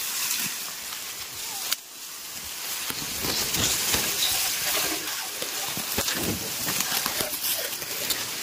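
Tall dry grass rustling and crackling as people push through it, the stalks brushing against the phone's microphone, with a couple of sharp clicks about two seconds and six seconds in.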